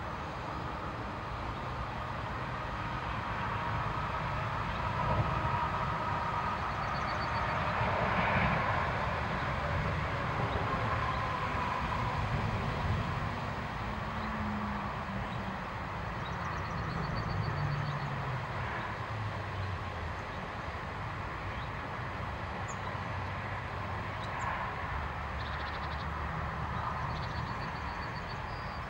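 Steady low rumble of distant road traffic, with a hum that slowly falls in pitch near the middle, like a vehicle passing. A few faint, short, high bird trills come through three times.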